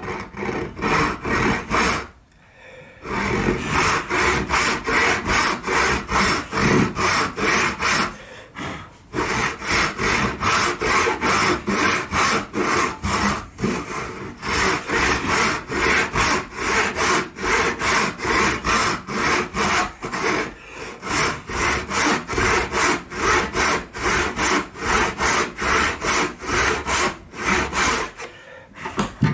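Hand saw cutting pallet wood in steady back-and-forth strokes, about two to three a second, stopping briefly four times between runs of strokes.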